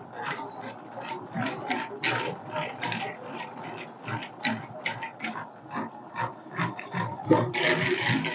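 Hand-cranked honey extractor being spun, its top-mounted crank gears clicking and grinding in a quick, uneven rhythm of several strokes a second.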